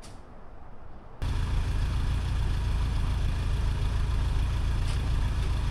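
A van's engine idling right close by, steady and low, cutting in abruptly about a second in.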